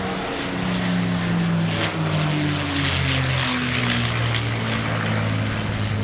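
P-51D Mustang's Packard-built Merlin V-12 engine and propeller running at display power during aerobatics, with a steady drone whose pitch shifts up and down as the plane turns. A rougher, raspier edge comes in about two to four seconds in.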